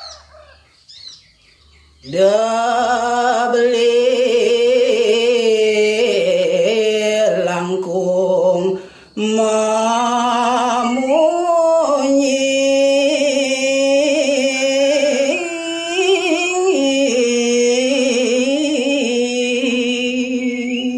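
A man singing a Balinese geguritan verse in pupuh Ginanti, a solo voice in long held notes with wavering ornaments. He comes in about two seconds in and breaks off briefly for breath a little before halfway.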